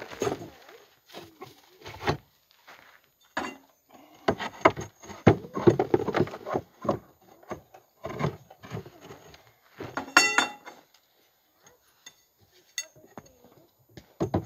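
Steel conduit legs knocking and clinking against a wooden chuck box as they are fitted into drilled holes, in a run of separate knocks and rattles. There is a brief ringing clink about ten seconds in.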